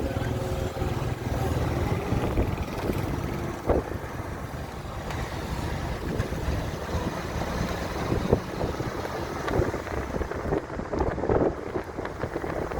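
A vehicle running along a road, with steady road and engine noise, wind on the microphone, and a couple of brief knocks.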